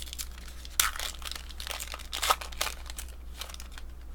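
Foil trading-card pack wrapper crinkling as it is handled and torn open, in irregular crackles with the sharpest near one second in and past the two-second mark.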